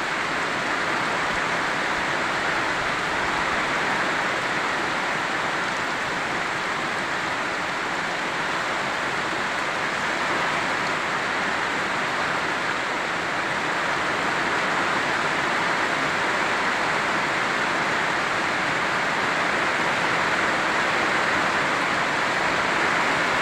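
Heavy rain falling on the leaves of trees and banana plants, a steady hiss that grows slightly louder in the second half.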